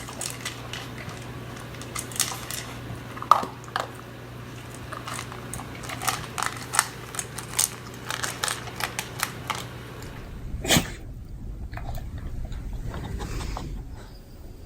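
Beagle chewing: a run of irregular wet clicks and smacks, several a second, with one louder snap about eleven seconds in. A steady low hum runs underneath and stops about ten seconds in.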